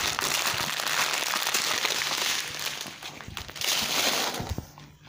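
Clear plastic bags of diamond-painting drills crinkling as they are handled, steadily for about two and a half seconds, then in scattered rustles that die away.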